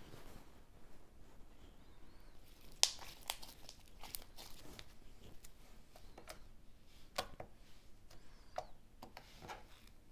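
Slime being kneaded and stretched by hand, giving irregular sticky clicks and crackles; the loudest snap comes a little under three seconds in.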